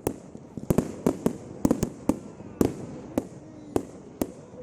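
Fireworks bursting in a fast, irregular series of about a dozen sharp bangs, each followed by a short echo.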